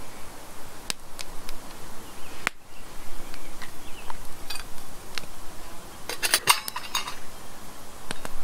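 Metal camp cookware clinking over a campfire: a small pot and frying pan knocked with a utensil. A few separate clicks come first, then a quick run of clinks about six seconds in.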